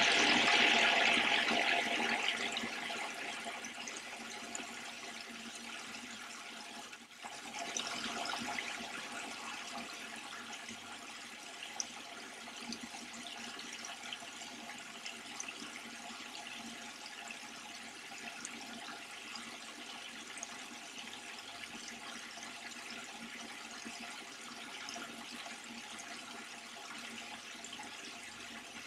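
Spiral cascade garden water feature running: water falling in many thin streams down the spiral and splashing steadily into the basin at its foot. Louder for the first couple of seconds, with a brief drop about seven seconds in.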